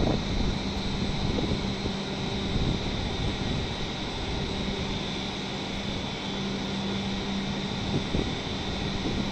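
A stationary W7 series Shinkansen train's onboard equipment running with a steady whirring hum and a constant low tone.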